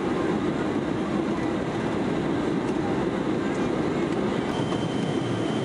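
Steady cabin noise of a Boeing 707 in flight, engine and airflow rumble heard from a window seat over the wing, on descent with the flaps extended. A faint thin whistle joins about four and a half seconds in.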